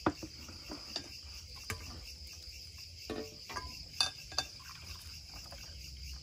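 Steady chirping of crickets, with a few light clinks and knocks of glassware and utensils as juice is poured from a blender jug into a glass.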